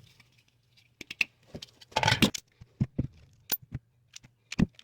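Chrome sockets clicking and clinking as they are slid off plastic socket rails and handled, a string of irregular sharp clacks with brief metallic ringing.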